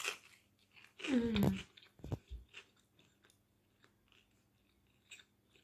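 A person biting into a crisp-edged toasted grilled cheese sandwich and chewing it: a crunch at the bite, then soft chewing clicks. A short hum from the eater about a second in.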